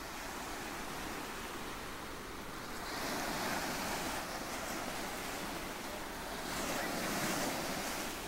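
Ocean waves breaking and washing ashore, swelling about three seconds in and again near the seventh second.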